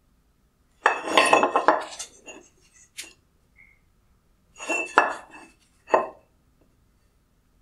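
Chrome-plated halves of a Kia Forte halogen headlight projector handled and knocked together on a wooden bench: hard clattering and clinking in two bouts, about a second in and about four and a half seconds in, with a single sharp click between them and another near the end.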